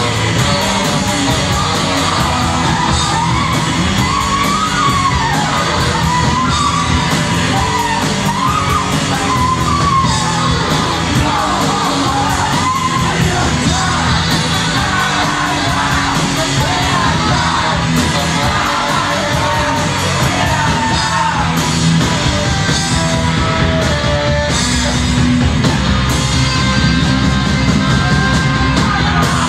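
Live rock band playing loudly, with electric guitars, bass and drums and a yelled vocal over the top.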